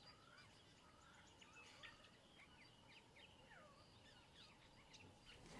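Near silence of the bush: faint, scattered short bird chirps and whistles over a low hiss.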